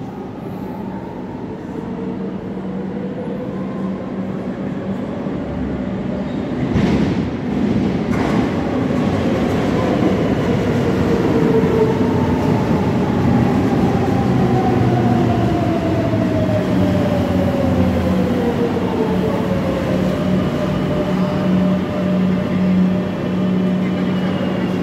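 Madrid Metro Serie 7000 electric train pulling into an underground station. Its rumble grows as it comes out of the tunnel, with two sharp knocks as it enters, over a steady low hum. Its motor whine then falls steadily in pitch as it brakes to a stop.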